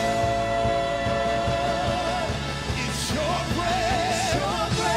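Live worship band playing with drums and cymbals under a lead voice singing long held notes that waver with vibrato: one held through the first half, a new phrase starting past the middle.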